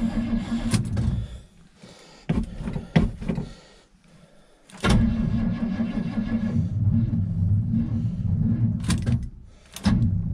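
Starter motor cranking the cold engine of a 1978 GM square-body farm truck in several bursts without it catching: a short crank at the start, two brief stabs, a long crank of about four seconds, a click, then another short crank. The owner puts the weak cranking down to a battery that is not as good.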